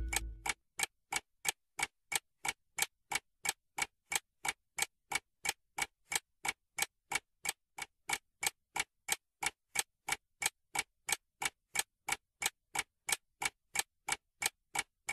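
Ticking-clock sound effect: even, sharp ticks at about three a second.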